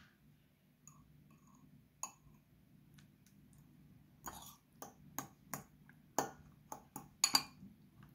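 Metal fork tapping and scraping against a ceramic bowl while mashing soft tomatoes: a few scattered clinks at first, then a quicker run of taps from about four seconds in.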